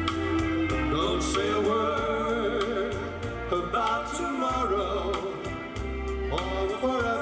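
A man singing a melody into a hand-held microphone over amplified backing music with a steady beat, about two strikes a second, and a bass line.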